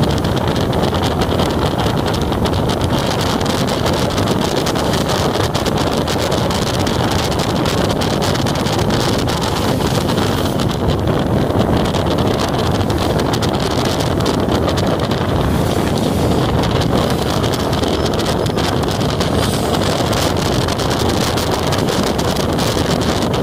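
Steady wind buffeting the microphone of a moving motorcycle, over the motorcycle's running and road noise.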